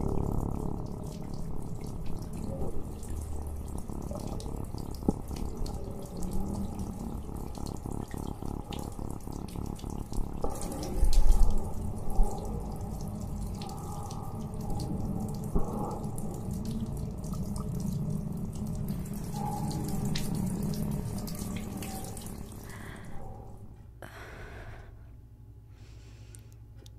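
Running water, muffled, with fine irregular splashing; it fades away near the end.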